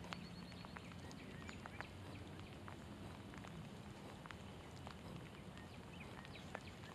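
Light rain: scattered raindrops tapping irregularly over a soft steady hiss, with a brief high chirping trill near the start.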